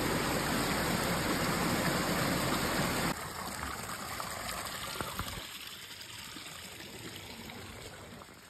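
Running water of a mountain stream, a steady rushing that drops abruptly about three seconds in and then fades away.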